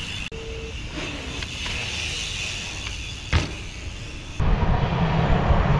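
Steady outdoor background noise with one sharp click about three seconds in; then, after an abrupt cut, a much louder low rumble of street traffic.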